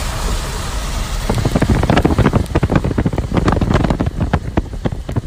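Steady road and wind noise from a car driving along, filmed through an open window. A little over a second in, it turns into rapid, irregular buffeting and crackling, as wind and rain strike the phone's microphone.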